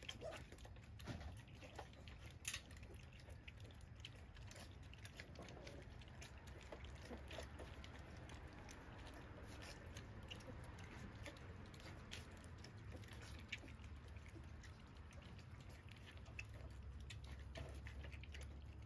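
Blue Dutch Shepherd puppies lapping and slurping milky food from a foil pan: faint, many small wet clicks.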